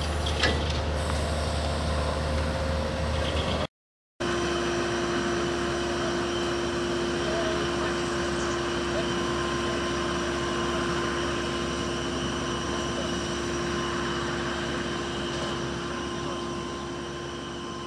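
A single metallic clank about half a second in, over a low hum. After a brief dropout, a steady engine drone with a constant hum follows, fading a little near the end.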